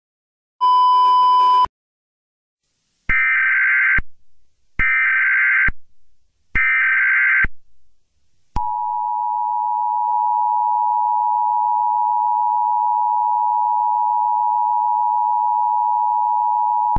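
Emergency Alert System activation tones. A short beep comes first, then three one-second bursts of the buzzing SAME data header, then the steady two-tone EAS attention signal sounds continuously from about halfway through.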